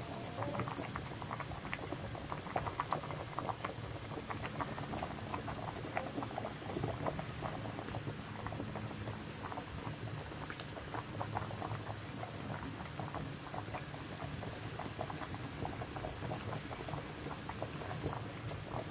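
Sliced mushrooms and minced garlic sizzling in oil in a non-stick frying pan: a steady crackle of many small pops.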